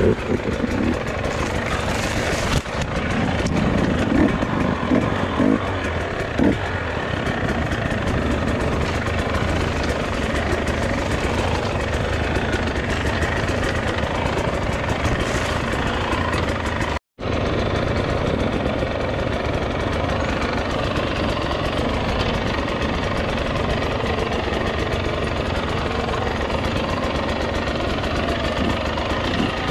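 Dirt bike engine running steadily as the bike is ridden along the trail. The sound cuts out for an instant about 17 seconds in.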